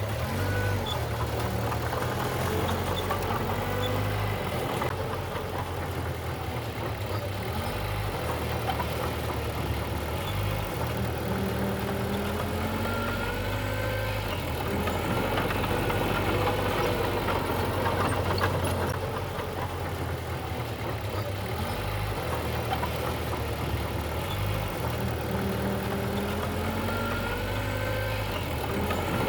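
Diesel engine of heavy earthmoving machinery running under varying load, its pitch rising and falling again and again.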